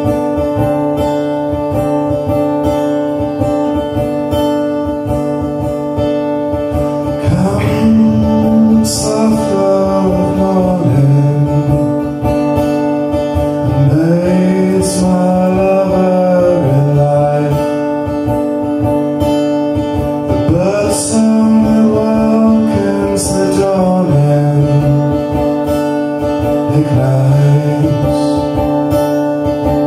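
A man singing to his own acoustic guitar. The strummed guitar plays alone for the first seven seconds or so, then the voice comes in and sings in phrases over it.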